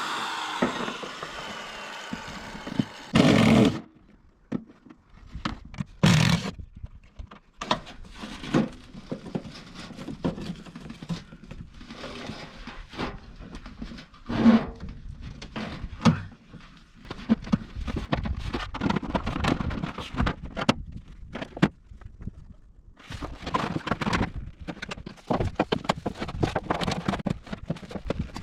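Irregular scrapes, knocks and rustles of working on a shingled roof, with a few louder thunks, as metal chimney flashing is worked in under the cut shingles. A buzzing power tool fades out at the very start.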